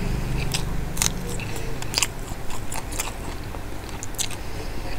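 Close-miked crunching and chewing of a raw green chilli: a run of sharp, crisp crunches at irregular intervals, several in the space of a few seconds.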